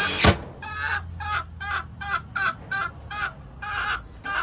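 A hen calling over and over in a steady run of short squawks, about four a second. A sharp noise sounds right at the start.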